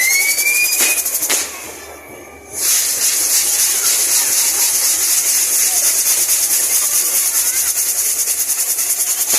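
Fireworks burning with a loud, steady hiss, broken by a brief gap about one and a half seconds in before the hiss starts again. A whistling firework glides up in pitch and fades out about a second in.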